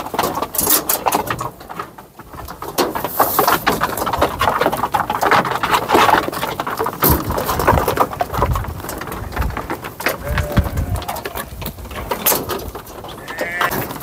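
Sheep hooves clattering irregularly on wooden floorboards as a group of sheep walks out over a slatted wooden ramp. A few short animal calls come through near the end.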